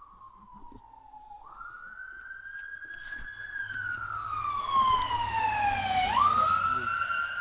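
Emergency vehicle siren wailing, its pitch sweeping slowly up and down and growing louder as it approaches, over the low rumble of traffic.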